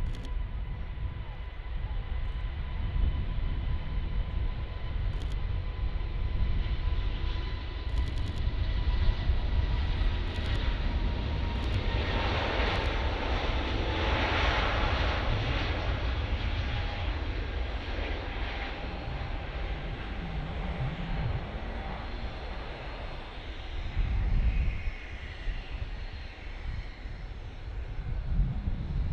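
Emirates Airbus A380-842's four Rolls-Royce Trent 900 turbofans at takeoff thrust as the jet rolls down the runway and lifts off. A deep steady rumble carries a high engine whine that slides slightly lower as the aircraft passes. The rushing noise is loudest about halfway through and then eases off.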